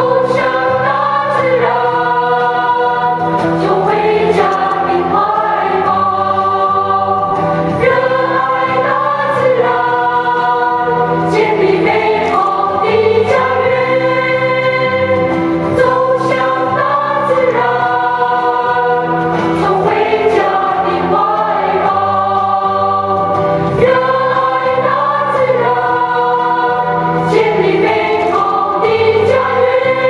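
A song with voices singing over an instrumental backing, played as the music for a group exercise dance routine.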